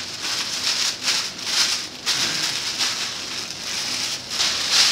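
Tissue paper crinkling and rustling in uneven surges as it is pulled open and unwrapped by hand.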